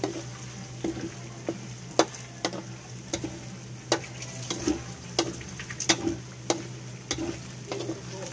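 Diced pork sizzling in oil in a wok while a spatula stirs it, the spatula knocking and scraping against the pan about one and a half times a second.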